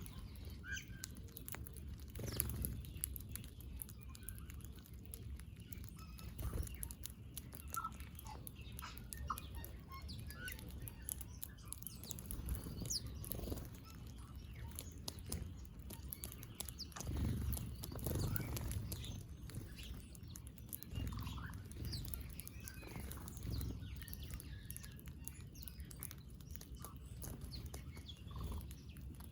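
Small birds giving short, scattered chirps and tweets while feeding, over soft low thumps and rumble.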